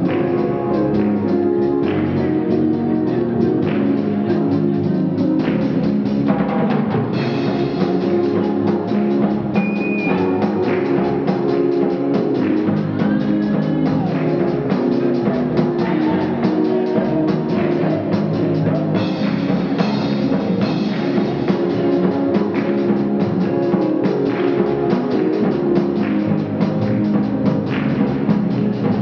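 Live band music with a drum kit keeping a steady beat over sustained instrument chords.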